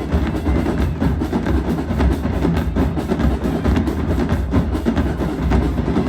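College marching band playing, the drumline's heavy, steady beat prominent.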